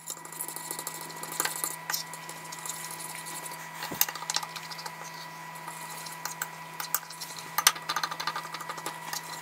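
Metal fork whisking a batter of beaten eggs and corn flour in a ceramic plate, its tines clicking and scraping against the plate in quick irregular runs. A faint steady hum runs underneath.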